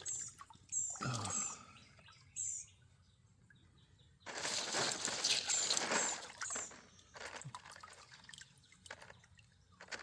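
Water sloshing and pouring through a rock sifter as stones are washed in a stream: a short splash about a second in, then a longer pour of about two seconds from around four seconds in.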